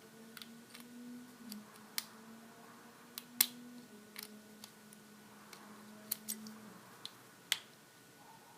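Small, irregular metal clicks and ticks of a lock pick and tension wrench working the spool pins inside a Master Lock 410 padlock, the loudest about three and a half seconds in.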